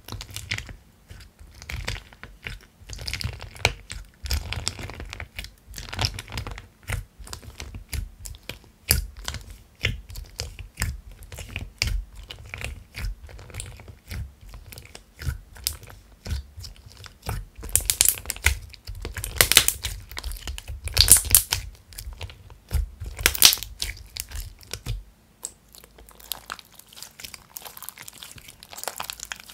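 Thick crunchy slime with corn-shaped toppings being poked and pressed by fingers in its plastic tub and then stretched, giving dense crackling and clicking. A louder spell of sharp crackles comes about two-thirds of the way through.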